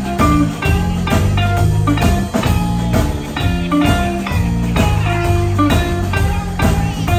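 Live electric blues band playing a guitar solo on electric guitar over bass and drums with a steady beat.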